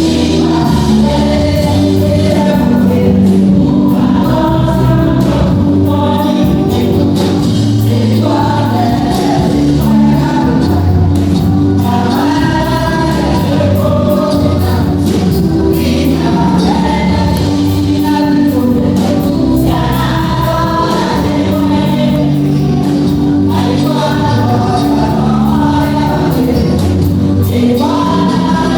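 A choir singing a gospel song over a band with bass and a steady beat.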